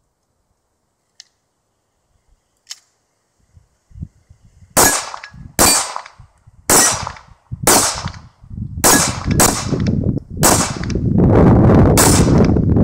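CZ75 Shadow SP-01 9mm pistol firing a string of about eight shots, roughly one a second, starting about five seconds in. Two faint clicks come before the shooting.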